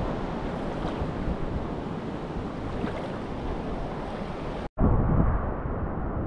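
Shallow seawater sloshing and lapping close to the microphone, with wind noise on it. About four and a half seconds in the sound cuts out for an instant and comes back muffled and deeper.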